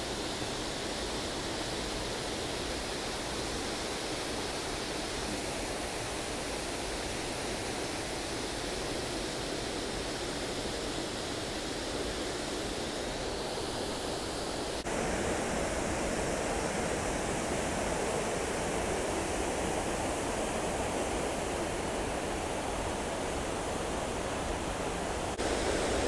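Waterfall rushing: a steady, even noise of falling water. It jumps abruptly louder and fuller about fifteen seconds in, and again just before the end.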